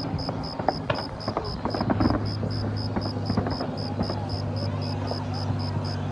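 Distant aerial fireworks popping and crackling in scattered sharp reports, over a steady chirping of crickets pulsing about six times a second and a low steady hum.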